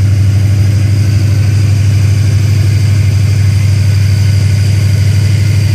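454 big-block V8 with headers idling steadily, a constant low hum with no change in speed.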